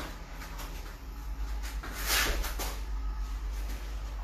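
Bare feet scuffing and a knee landing on foam puzzle mats during a jiu-jitsu single-leg drill, with gi fabric rustling. The loudest is a brushing burst about two seconds in, over a steady low hum.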